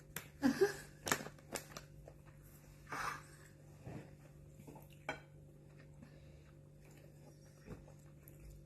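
A spoon clinking and scraping against a feeding bowl a few times, most of it in the first second and again about three and five seconds in, over a faint steady hum.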